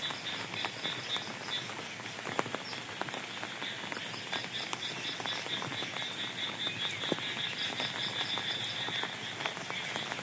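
Frogs croaking in repeated trains of rapid high-pitched notes over steady rain, with scattered drips.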